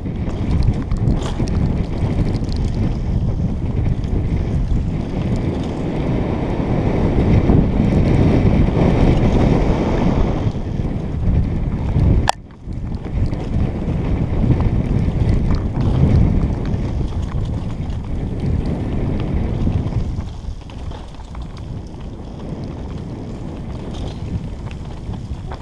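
Wind noise buffeting the microphone of a camera carried by a downhill mountain biker, mixed with the rumble and rattle of the bike riding fast over a dirt forest trail. The sound cuts out briefly with a click about halfway through and eases off over the last few seconds.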